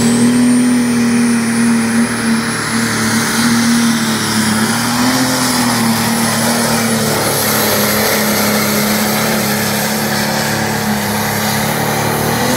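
Pulling tractor's heavily tuned diesel engine at full throttle, dragging the weight-transfer sled down the track at a steady high pitch on a run that goes all the way to a full pull.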